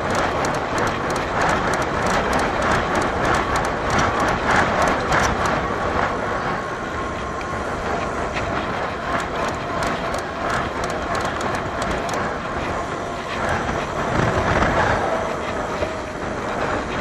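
A bicycle rolling fast on a concrete track: steady rushing wind and tyre noise with a rapid rattle of clicks from the bike, which thins out after about twelve seconds.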